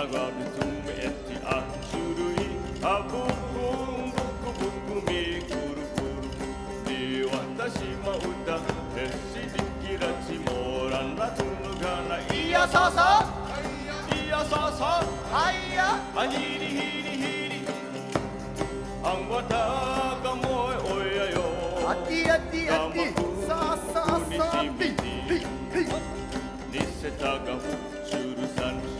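Okinawan folk song played live on several sanshin, the three-stringed Okinawan lute, plucked in ensemble, with voices singing the melody.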